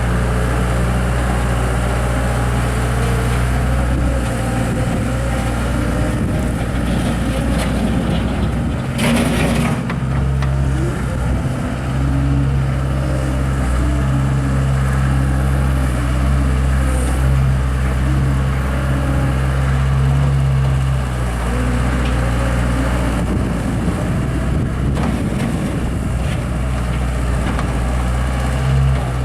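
Mustang 960 skid steer loader's engine running steadily, its low drone lasting throughout. About nine seconds in there is a brief burst of hissing noise.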